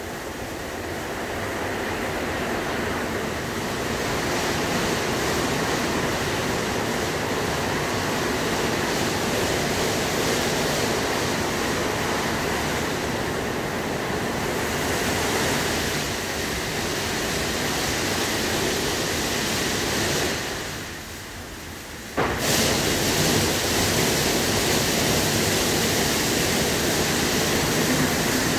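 WashTec SoftCare2 Pro rollover car wash at work: a steady rush of water spray with the gantry's brushes and machinery running. About three quarters of the way through the sound dies down for a second or two, then the spray cuts back in abruptly and louder.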